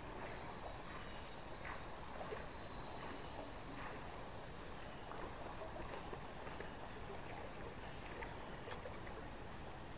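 Faint outdoor ambience of a flowing river, with scattered soft clicks and faint short high chirps.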